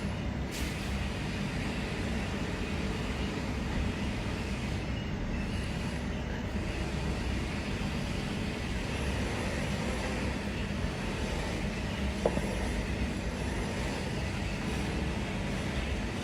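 Steady low rumble with a hiss over it: unbroken background noise. There is one faint short tick about twelve seconds in.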